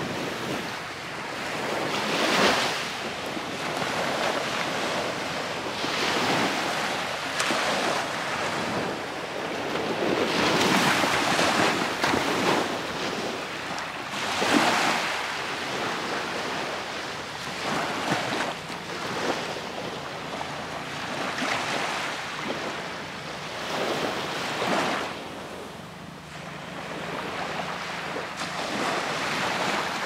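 Small waves washing onto a sandy beach, surging and falling back every few seconds, with wind on the microphone.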